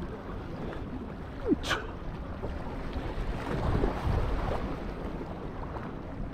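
Wind buffeting the microphone and harbour water sloshing against rocks, with a short sharp noise about a second and a half in.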